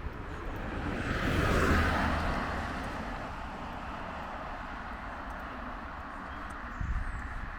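A passing road vehicle, its tyre and engine noise swelling to a peak about a second and a half in, then fading into steady background noise.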